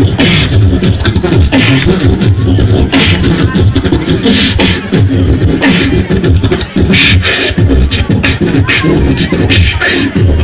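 Live beatboxing into a handheld microphone, amplified through a stage PA: a continuous rhythm of deep bass hits with sharp hissing snare-like sounds.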